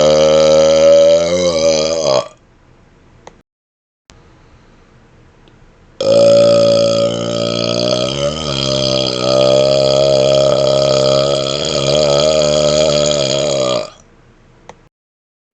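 A man's deliberate, loud burps. One burp ends about two seconds in; after a pause of a few seconds, a second, very long burp is held for about eight seconds at a fairly steady pitch, wobbling briefly in the middle, before it stops.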